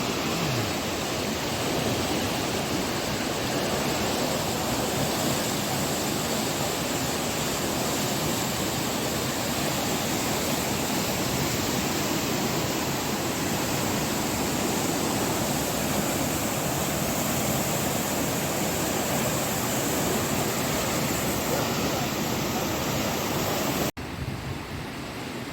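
Fast-flowing floodwater rushing by, a steady, even noise of moving water that cuts off abruptly near the end, giving way to a quieter background.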